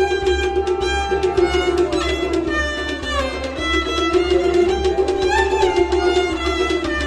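Instrumental passage of Kashmiri Sufiana music: a harmonium holds a melody with steady sustained notes, a bowed string instrument slides between notes over it, and a hand drum keeps a steady beat underneath.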